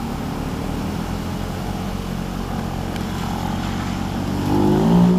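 Benelli Mini Tornado 125 motorcycles, small single-cylinder four-stroke engines, running as the bikes ride up a lane toward the listener. The engine note grows louder near the end as the lead bike comes close.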